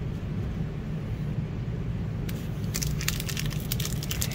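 Foil wrapper of a sealed Fortnite Series 3 trading-card pack crinkling as it is picked up and handled, a quick run of crackles starting about two seconds in, over a steady low hum.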